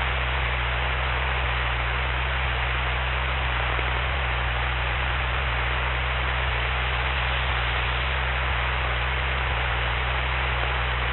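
Steady hiss with a low, even hum: the line noise of a Cessna 172's cabin intercom recording in flight while no headset microphone is open.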